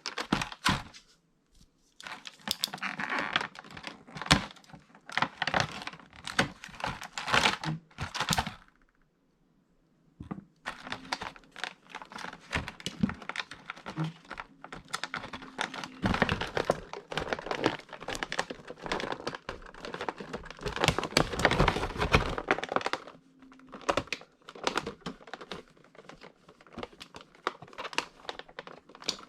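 Action figure packaging being opened and handled by hand: plastic and cardboard crinkling and rustling, with many quick clicks and taps. It stops briefly twice, once near the start and once about a third of the way in.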